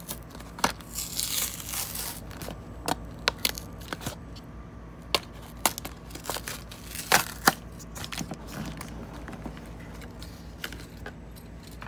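A Hot Wheels blister pack being torn open by hand: the cardboard backing card rips and the plastic bubble crinkles. There is a longer rip about a second in, then scattered sharp crackles and snaps, the loudest about seven seconds in.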